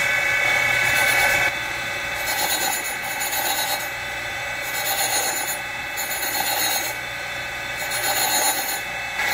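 Surface grinder running, its abrasive wheel grinding across an aluminum magnetic parallel on the magnetic chuck. A hiss of grinding rises and falls four times as the table carries the part back and forth under the wheel, over the steady hum of the running machine.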